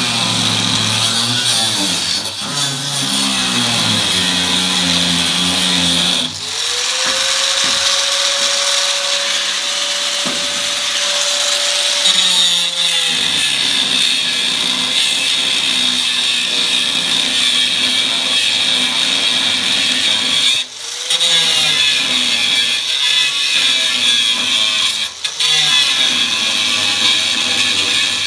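Hand-held power cutting tool running continuously as it cuts through metal, with short stops about six seconds in and twice near the end. For several seconds after the first stop, a steady whine stands out above the cutting noise.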